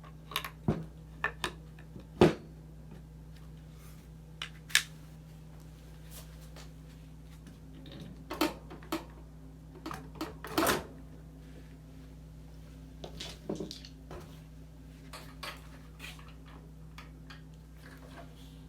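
Scattered clicks and knocks of the frozen drink machine's parts being handled and fitted into place by hand, the loudest about two seconds in and again near ten seconds, over a steady low hum.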